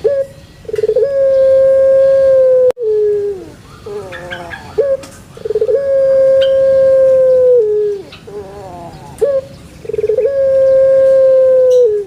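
An animal's loud, repeated call, three times. Each call opens with a quick stutter, holds one steady note for about two seconds, then falls away at the end, with shorter wavering notes in between.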